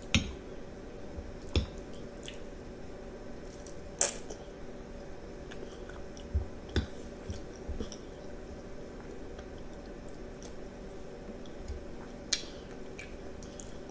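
Metal fork clinking and scraping on a plate as spaghetti in meat sauce is twirled, a handful of sharp clinks spread through, between soft chewing and squishing of a young child eating. A steady low hum runs underneath.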